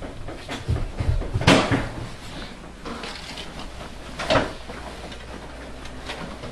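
A few knocks and thumps: low thuds about a second in, a sharp knock soon after, and another sharp knock about four seconds in.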